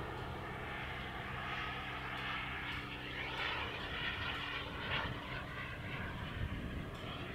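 Xicoy X-45 model jet turbine in a Freewing T-45 RC jet flying past in the air: a steady distant jet hiss.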